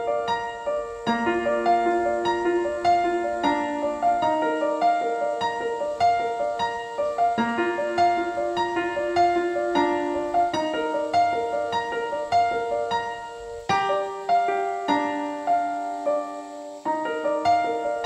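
Background piano music: a gentle melody of evenly spaced notes over slower-changing lower notes.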